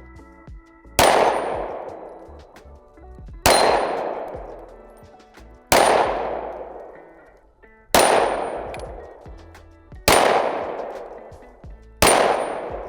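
Six pistol shots from a SIG P320 X-Carry, fired slowly about two seconds apart, each sharp crack trailing off in a long decaying ring.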